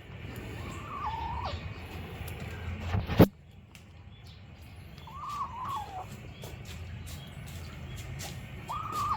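A young kitten making short, wavering squeaky calls while eating sardines, three times, with small clicks in between. A single sharp knock about three seconds in is the loudest sound.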